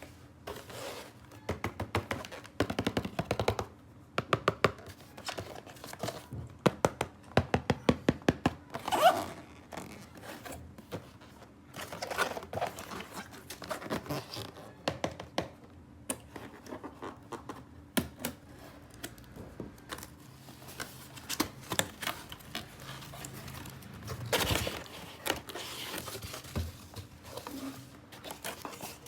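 Hands unboxing plastic toys: a string of clicks, taps and knocks of small plastic pieces, with plastic packaging crinkling and tearing in between.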